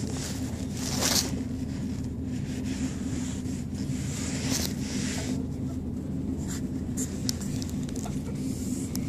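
Regional train heard from inside the passenger compartment, its engine giving a steady low drone as it pulls away from the station and gathers speed. A few brief hissing rushes and some faint clicks come over the drone.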